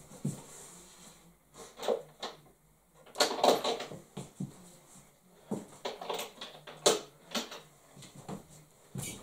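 Someone rummaging through things while looking for a guitar slide: irregular knocks, clicks and rustles of objects being moved and handled, with a louder burst of rustling a little over three seconds in and a couple of sharp clicks near the end.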